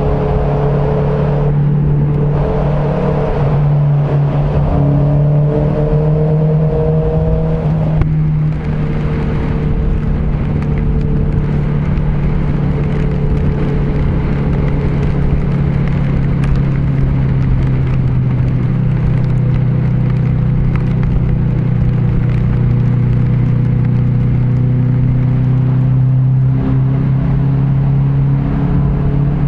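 Honda CBR650F's inline-four engine running steadily at highway cruising speed, with a rush of wind and road noise. The engine note drops a little about eight seconds in and rises slightly near the end.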